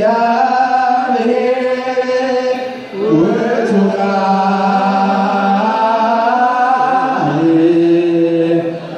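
Ethiopian Orthodox liturgical chant: voices singing long, held melismatic lines with wavering ornaments, unaccompanied. There is a brief break for breath about three seconds in.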